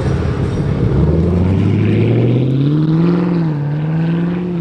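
A car engine accelerating: its pitch climbs steadily from about a second in, dips briefly, then holds steady.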